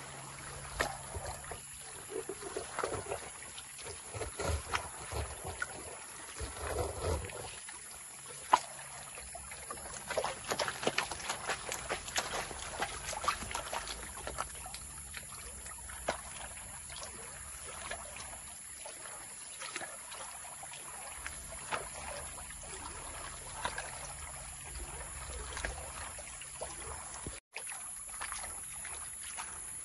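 Water sloshing and splashing as a gold pan of sand and gravel is swirled and dipped in a shallow stream, with irregular small clicks of gravel against the pan. The sound cuts out for an instant near the end.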